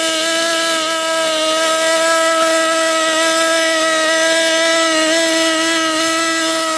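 Crashed RC helicopter's small model engine running on at a steady high speed, an even high-pitched whine; the engine has not been shut off after the crash.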